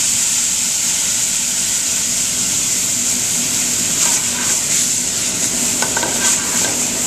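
Mixed vegetables and freshly added white wine sizzling in a stainless sauté pan over a gas flame as the pan is shaken and tossed, with a few short metal clatters around four and six seconds in.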